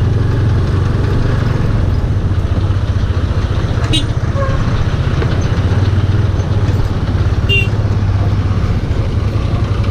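A motorcycle engine running steadily under way, a low, even drone.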